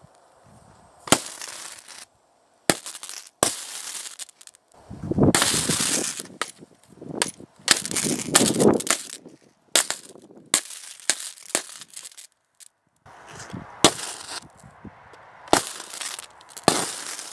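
High-current DC arcing from four lead-acid batteries in series, shorted through a copper rod onto a laptop's metal casing: a run of sharp cracks with longer crackling, sizzling bursts of arcing between them.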